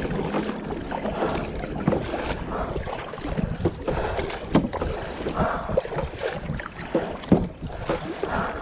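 Choppy, wind-driven water knocking and splashing irregularly against a kayak's hull, with wind rumbling on the microphone.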